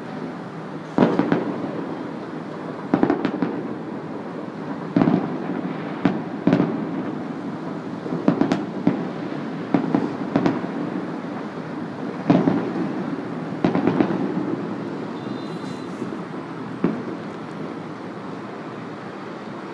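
Distant aerial fireworks shells bursting: about a dozen sharp bangs, irregularly spaced, each followed by a rolling echo, over a steady low background rumble. The bangs thin out near the end.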